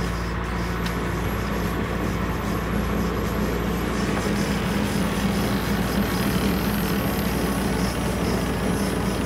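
A motor running steadily, a constant low mechanical drone with no change in pitch.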